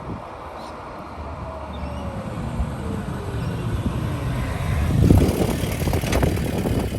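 A motor vehicle running, growing louder over the last few seconds, with a thin whine that falls in pitch over the first few seconds.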